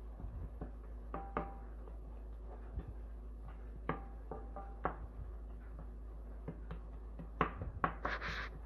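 Wooden spoon stirring chopped onion, green pepper and garlic in a nonstick pan, with scattered knocks of the spoon against the pan, a few of them ringing briefly, and a short scrape near the end. A low steady hum runs underneath.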